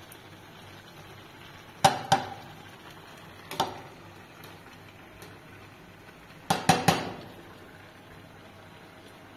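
Sharp clanking knocks, like hard objects striking: two close together about two seconds in, a single one a moment later, then three in quick succession near the end.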